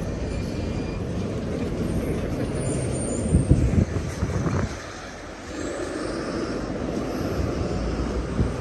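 Steady rumble of road traffic on a city street, with a louder cluster of low bumps and rumbles about three and a half seconds in before it eases briefly.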